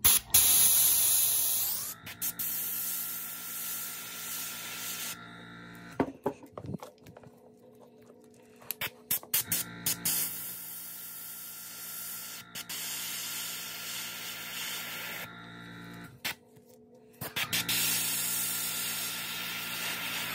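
Iwata airbrush spraying opaque white paint: a hiss of air in three long bursts of a few seconds each, with short pauses and light clicks between them. A steady hum runs underneath.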